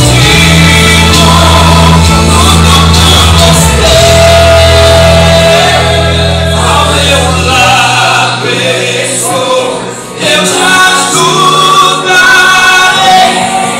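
A gospel song: a singer with loud backing music, the heavy bass dropping out about halfway through.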